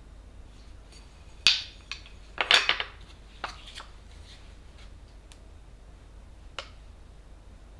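Kitchen utensils being handled and set down on a countertop. A sharp knock comes about a second and a half in, a short clattering cluster a second later, then lighter ticks, and a single click near the end.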